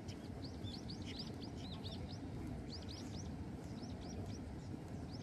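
Small birds chirping: many short, quick, arched chirps in loose clusters, over a steady low rumble.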